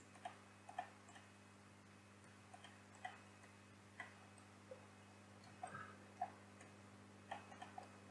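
Quiet, irregular clicks of a computer mouse and keyboard, about a dozen, over a faint steady electrical hum.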